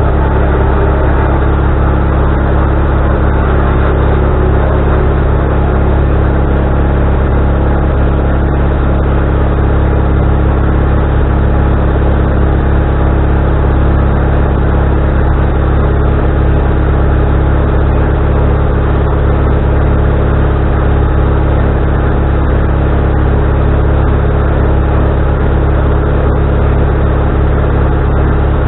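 Wood-Mizer LT40HD band sawmill running steadily, its engine and band blade sawing a log, with a loud, unbroken drone.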